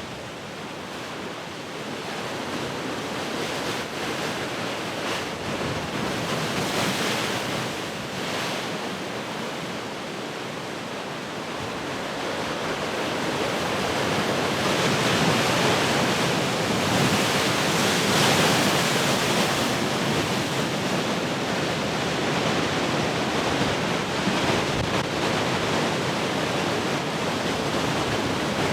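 Large ocean waves breaking as continuous surf, swelling and easing, loudest about halfway through, with wind in the background.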